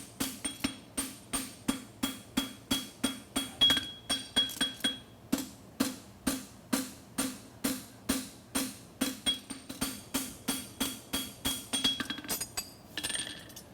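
Rhythmic hammer blows on hot steel bar stock over an anvil, about three a second, each with a short metallic ring, as the scooped toe of a bar horseshoe is forged. The blows stop a little before the end.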